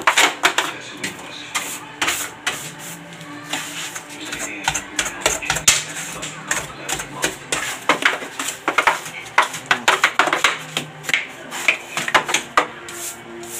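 Irregular clicks, taps and knocks of hands working a videoke machine and CRT television, pressing buttons and moving parts, over a faint low steady hum.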